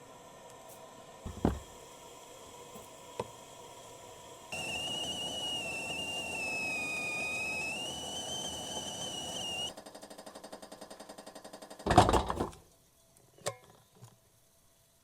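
Stovetop kettle whistling on the gas burner, a steady, slightly wavering whistle over a hiss for about five seconds, which cuts off abruptly. Then a fast rhythmic rattle and, about twelve seconds in, one loud thump.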